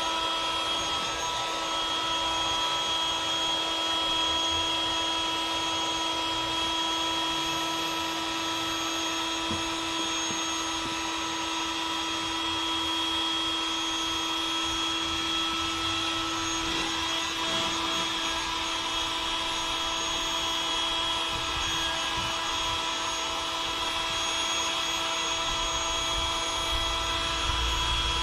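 Electric air pump running steadily with a constant whine, inflating a chamber of an inflatable boat.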